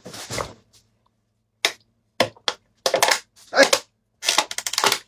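A person drinking from a plastic bottle: a series of short gulps and mouth clicks, with a quick run of clicks near the end.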